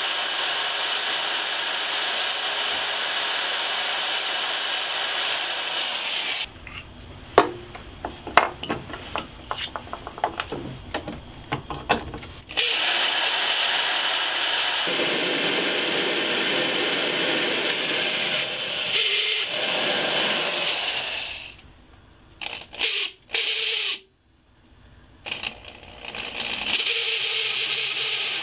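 Drill press running as a small bit drills pin holes through an antler handle and a knife's steel tang. The motor stops about six seconds in, leaving a few seconds of clicks and knocks of handling, runs again from about twelve seconds, and stops once more for several seconds before starting again near the end.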